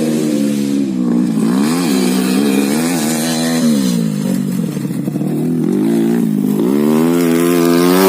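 Honda Win motorcycle fitted with a 130cc Yamaha engine, running with its revs rising and falling several times. The engine note drops lowest about five seconds in, then climbs again near the end.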